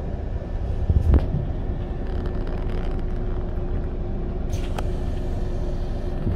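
Bus driving along, heard from inside: a steady low engine and road rumble with a faint even hum, and a knock about a second in.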